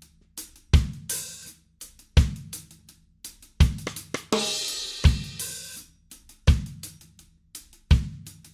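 Intro music of a drum kit playing a steady beat: a heavy low drum hit about every second and a half, with cymbal crashes ringing out after some of them and quicker hi-hat and snare hits in between.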